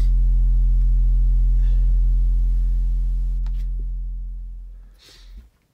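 Car subwoofer (single 10-inch) playing a steady low sine test tone of about 42–43 Hz, the box's peak frequency, used to measure impedance rise. The tone fades out from about four seconds in, is gone briefly near the end, then swells back up. A brief rustle of handling about five seconds in.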